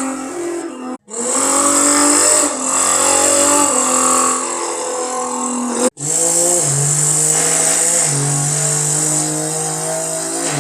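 A person imitating a Porsche engine with their mouth: a buzzing engine-like drone that revs and steps in pitch like gear changes. It is broken by two brief breaks, about a second in and about six seconds in.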